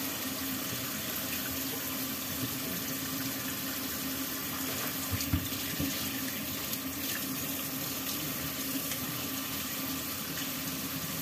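Kitchen tap running steadily into a stainless steel sink while fish are rinsed and cleaned by hand, with a small knock about five seconds in.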